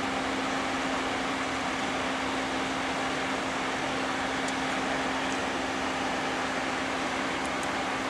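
Steady machine hum with fan-like noise and a constant low tone, with a few faint light ticks about halfway through and near the end.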